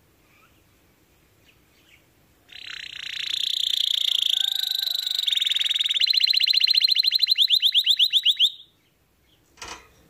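Domestic canary singing: a loud warbling phrase starts about two and a half seconds in and runs into a fast trill of repeated notes, about ten a second, that stops abruptly. A brief knock follows near the end.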